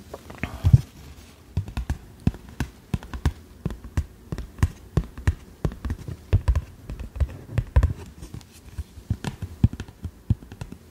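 Fingernails tapping and handling a small printed card close to the microphone: ASMR tapping, an uneven run of short sharp taps, several a second.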